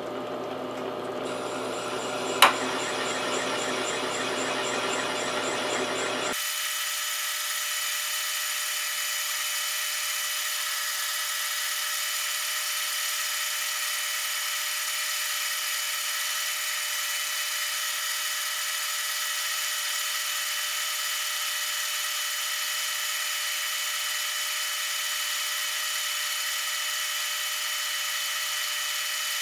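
Metal lathe running steadily while a finishing tool takes a light cleanup pass along a Morse taper, a constant machine whine with several fixed tones. There is one sharp click about two and a half seconds in. About six seconds in the deep part of the sound suddenly drops out, leaving a thinner, higher whine.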